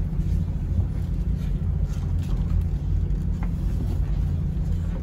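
Steady low rumble of a RoRo ferry's engines under way, heard inside the passenger cabin.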